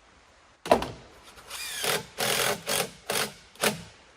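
A sharp knock, then a cordless drill spinning up and run in about five short bursts into a mountain laurel branch to fasten it to the nest frame.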